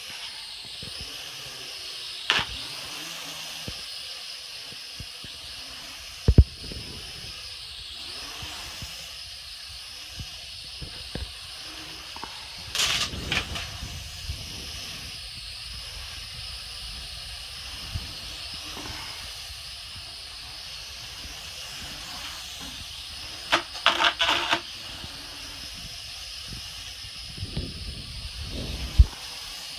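Small quadcopter drones' propellers buzzing with a steady high whine as they fly, broken by a few sharp knocks and short louder bursts.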